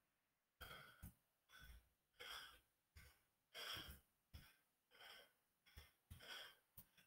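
Near silence, with faint soft breaths near the microphone about once a second.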